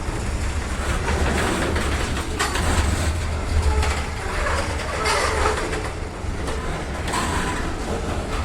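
BNSF freight train rolling slowly on the rails, a steady low rumble with wheel-on-rail noise and a few faint brief squeals.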